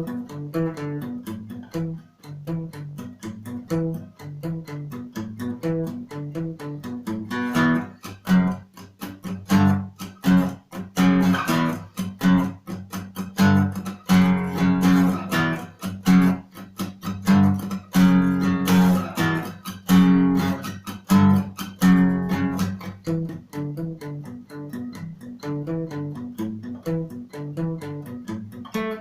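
Cort Earth 100 NAT acoustic guitar being played: picked arpeggiated notes, with louder strummed chords through the middle stretch.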